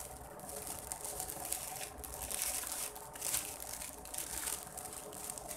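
Clear cellophane gift wrap crinkling and rustling in irregular bursts as it is pulled open by hand.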